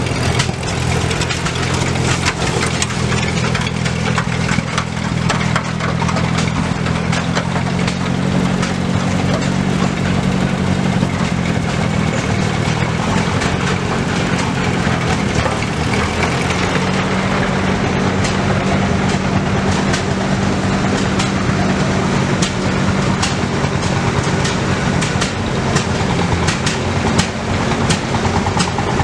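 Vintage farm tractor engines running steadily at low speed as the tractors drive past one after another, the engine note shifting a few times as different tractors go by.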